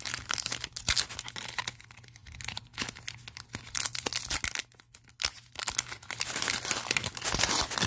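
Foil wrapper of a Pokémon card prize pack crinkling and crackling as it is cut with scissors and pulled open by hand, in irregular bursts that grow denser and louder in the last two seconds.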